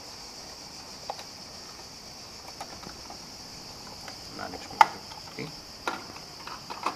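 Small screwdriver prying at the plastic cover of an Epson Stylus Photo RX685 inkjet printer: a few sharp plastic clicks and taps, the loudest about five seconds in, over a steady high-pitched hiss.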